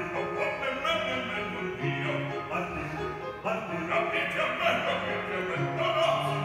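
Opera: a singer with an orchestra, with bowed strings holding low notes underneath.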